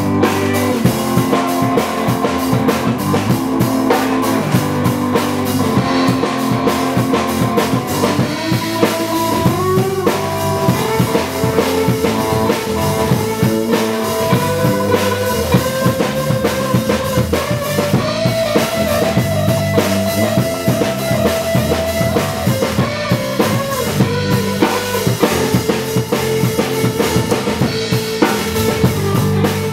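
A live rock band playing an instrumental passage: a drum kit keeps a steady beat under electric bass and guitar, while held melody notes step up and down over the top.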